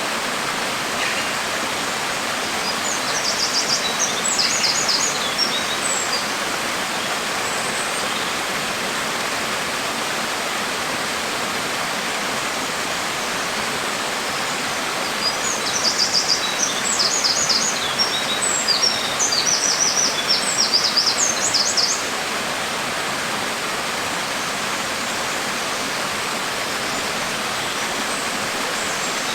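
Steady hiss of rain falling, with a bird singing in two spells of quick, high chirping phrases, about three seconds in and again from about fifteen to twenty-two seconds.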